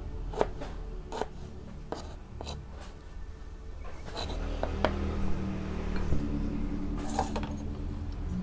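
Kitchen knife slicing tomatoes on a plastic cutting board: separate short cuts, each ending in a tap of the blade on the board, about seven of them at uneven intervals.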